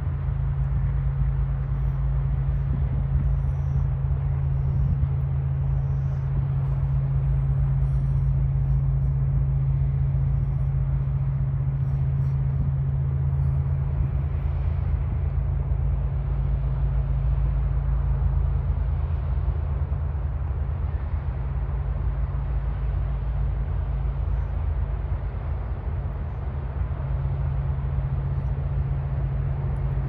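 Steady low drone of towboat diesel engines pushing barges, over an uneven low rumble.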